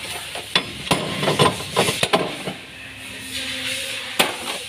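Slide-hammer hub puller bolted to a Mitsubishi Pajero's front wheel hub, knocking hard to draw the hub bearing assembly off. There is a quick run of sharp metal knocks over the first two seconds, then one more heavy knock near the end.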